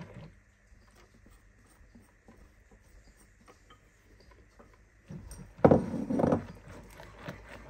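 Wire whisk working flour into chocolate cake batter in a ceramic bowl: faint scrapes and taps at first, then a loud spell of quick rhythmic whisking strokes about five seconds in.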